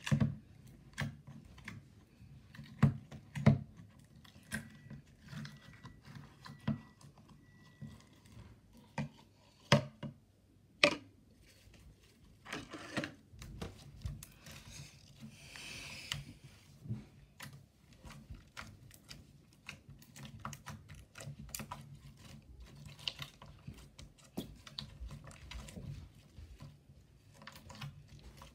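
Green glitter slime being pulled out of a glass jar by the fingers and then pressed and kneaded on a hard surface. It makes sticky clicks, pops and squishes: a few sharp, louder clicks in roughly the first eleven seconds, then a steadier run of softer irregular clicking.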